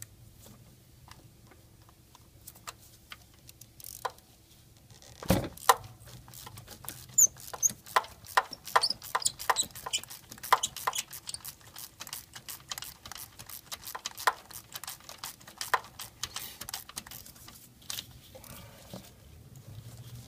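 Hand ratchet clicking in quick runs as it turns a socket on a spark plug in the 2001 Ford Expedition's 4.6L V8, working the plug out of the aluminum head by hand. A single sharp knock comes about five seconds in, before the clicking starts.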